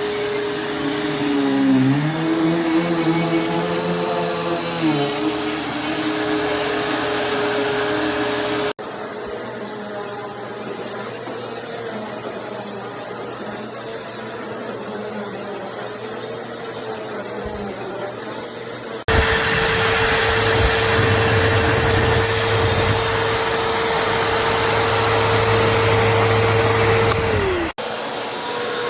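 BISSELL CleanView Swivel Pet upright vacuum cleaner running, its motor giving a steady whine. The pitch dips and wavers for a few seconds near the start. The sound changes abruptly three times, quieter in the middle stretch and loudest near the end.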